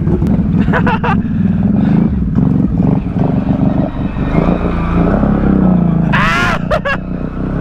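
Can-Am ATV engine running steadily under load as the quad wades through a deep water hole, with water churning and splashing around it. A brief high-pitched cry comes about six seconds in.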